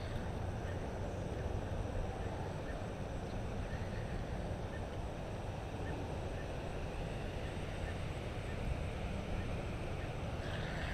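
Steady low rumble of wind on the microphone, with faint light ticks now and then and a brief higher rustle near the end.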